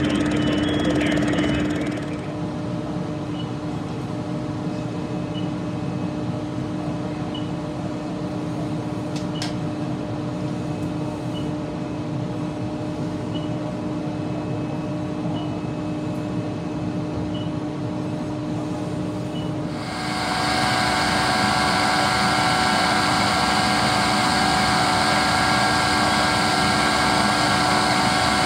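Steady engine drone of fireground equipment, with a faint short beep about every two seconds. About 20 seconds in it gets louder and fuller, with more steady tones, as a portable generator and a positive-pressure ventilation fan at the doorway run up close.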